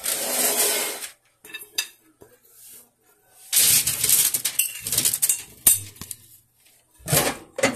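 Seasoned potato chunks tumbling out of a glass bowl onto a parchment-lined baking sheet, with clinks of the bowl and a spoon. It comes in three bursts of rattling and sliding, the longest in the middle.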